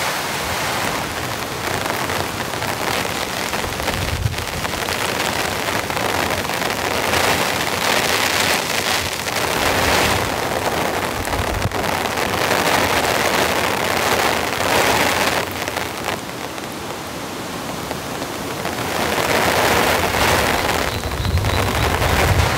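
Heavy, steady rain falling on a hut's corrugated iron roof and the surrounding bush, swelling and easing in waves.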